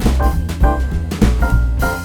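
Background music with a drum-kit beat, bass and piano.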